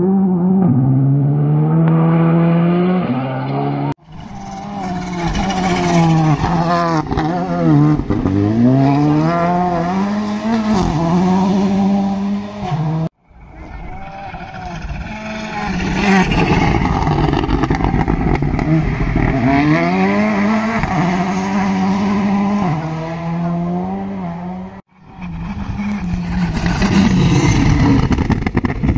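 Rally cars at full speed on a gravel special stage, their engines revving hard, the pitch climbing and dropping again and again as they shift gears, over a rush of gravel and tyre noise. The sound breaks off abruptly three times as one passing car gives way to the next.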